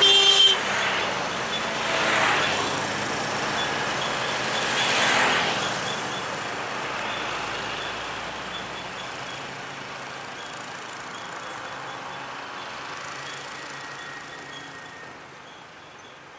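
Road traffic passing close: heavy trucks, cars and motorcycles going by, with a short horn blast right at the start. Two more vehicles pass loudly about two and five seconds in, after which the traffic noise fades steadily to a quieter, more distant rumble.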